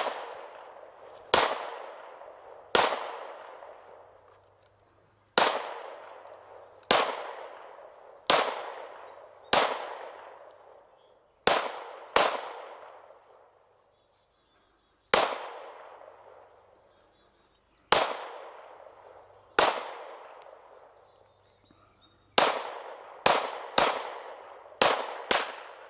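Semi-automatic pistol firing about seventeen single shots at uneven spacing, several in quick succession near the end. Each crack is followed by an echo that dies away over a second or so.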